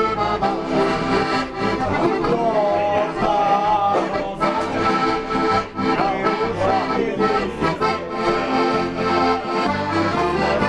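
Background music led by an accordion over a steady bass beat.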